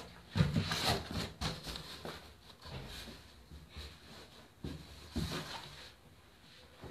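Rustling and a few short knocks as a person moves about and handles things right beside the phone, with clothing brushing close to the microphone; loudest just after the start and again about five seconds in.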